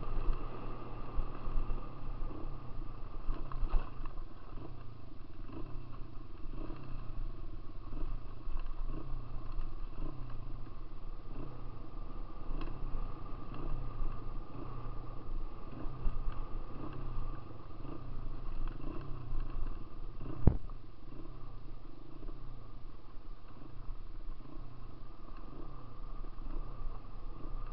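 Dirt bike engine running while riding, its note rising and falling over and over with the throttle and gear changes. A single sharp knock about twenty seconds in.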